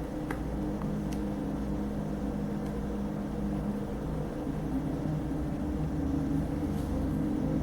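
A steady low mechanical hum with several steady tones, with a few faint ticks in the first second or so.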